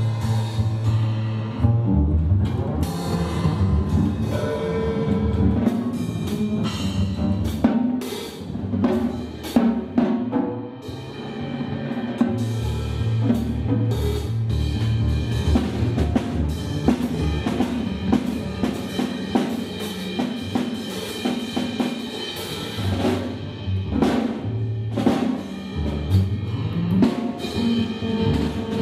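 Improvised duo of drums and double bass: drumsticks strike the drums in irregular strokes with no steady beat, over long bowed bass notes.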